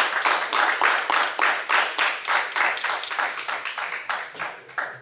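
Audience applauding, the clapping thinning out and stopping near the end.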